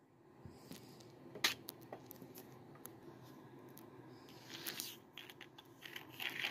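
A cat knocking a plastic bottle cap off a wooden tabletop: a sharp click about a second and a half in, among a few lighter taps, with short bursts of light rustling and clicking later on.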